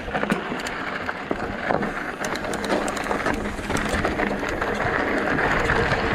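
Mountain bike rolling fast down a rocky dirt trail: a steady rush of tyre and wind noise with many quick clicks and rattles from stones and the bike, getting louder toward the end.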